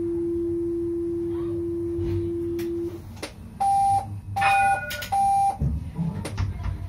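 Tram warning signals in the driver's cab at a stop: a steady low beep lasting about three seconds, then three shorter, higher beeps. A low rumble comes in near the end as the tram begins to move off.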